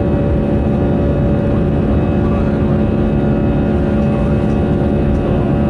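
Jet airliner cabin noise during the climb after takeoff: a steady, loud rush of engines and airflow with several steady engine tones running through it.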